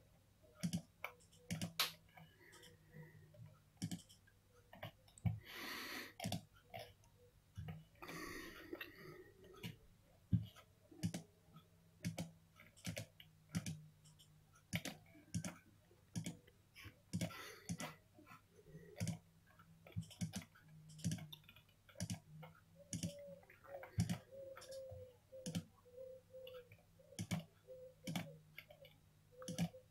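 Faint, irregular computer mouse clicks, about one or two a second, with two brief soft rushes of noise a few seconds in.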